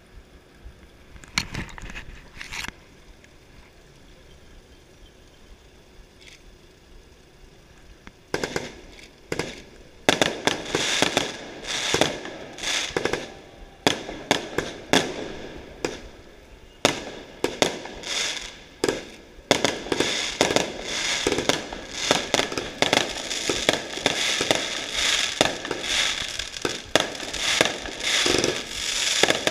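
Firecrackers going off: two bangs near the start, then after a lull a long, rapid run of cracks that grows denser and almost continuous toward the end.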